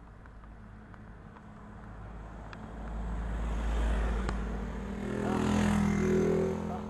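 A small van and then a motorcycle overtake close by, their engines and tyres growing louder as they pass. The motorcycle's engine hum, loudest a little after the middle, fades away near the end.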